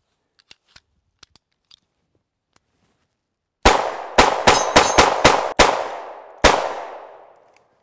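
A few faint handling clicks, then a Ruger SR1911 Officer Style .45 ACP pistol firing 185-grain standard-pressure rounds: a rapid string of about eight shots, the last after a short pause, each ringing out. The gun cycles through the whole load, its triple recoil spring controlling the slide.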